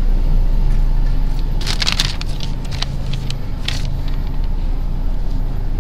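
Rustling and crinkling of a paper shopping list being handled, in a cluster about two seconds in and again near four seconds, over a steady low hum.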